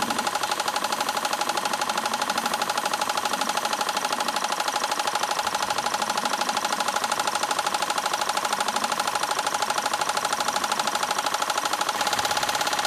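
Paraffin-fired Philips MP 1002 CA Stirling engine generating set running steadily with a fast, even beat. It becomes slightly louder near the end.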